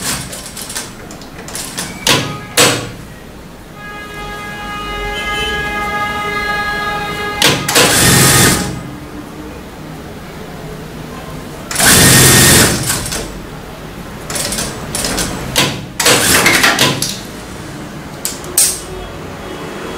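Industrial lockstitch sewing machine stitching in short runs, the two loudest lasting about a second each, about 8 and 12 seconds in, with sharp clicks between the runs.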